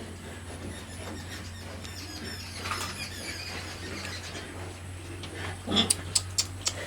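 Pigs in their pens squealing faintly over a steady low hum. Near the end a quick series of sharp knocks begins.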